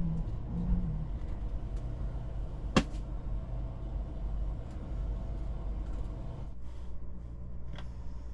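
Semi-truck engine running with a steady low rumble, with a sharp click about three seconds in and a fainter one near the end.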